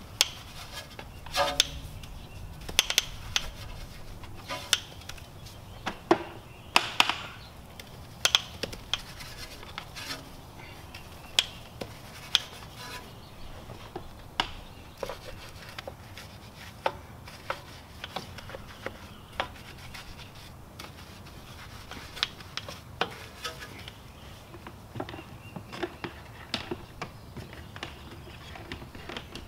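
Hand scrubbing of a soapy car alloy wheel with a microfiber wash mitt and a small detail brush, with many irregular sharp clicks and taps.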